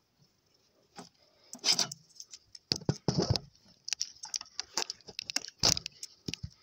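Handling noise of a phone held at a telescope eyepiece: irregular clicks, knocks and light scrapes, with the heaviest knocks about two seconds in, around three seconds and near six seconds.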